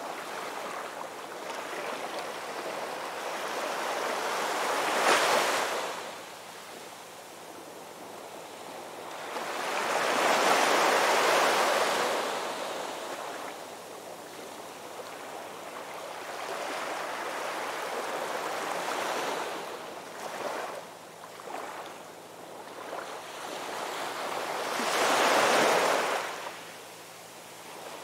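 Ocean surf on a beach: a continuous wash of waves, with three larger breakers swelling and fading, about five seconds in, around ten to twelve seconds in, and again near the end.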